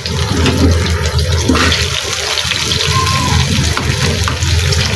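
Sauce sizzling and bubbling in hot oil in a frying pan over a gas flame: a steady rushing hiss with a low rumble underneath.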